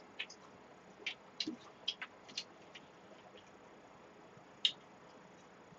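Quiet eating sounds close to the microphone: scattered short clicks and smacks, several in the first couple of seconds and one louder click about three quarters of the way through.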